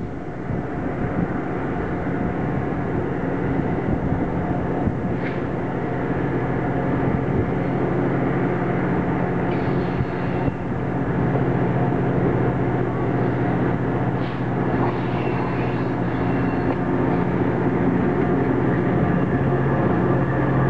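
VIA Rail F40PH-2 diesel locomotive approaching with its engine droning steadily and growing louder, then passing close by, with its passenger cars rolling past near the end.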